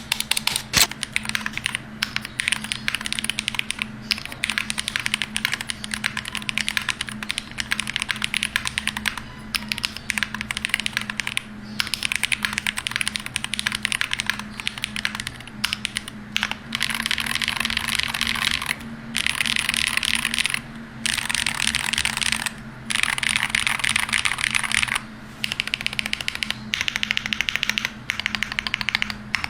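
Fast typing on a Hall-effect magnetic-switch keyboard: dense runs of key clacks lasting a few seconds each, broken by short pauses.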